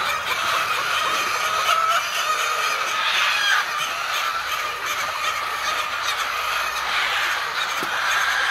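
Dense, continuous clamour of many birds calling over one another, like a large poultry flock.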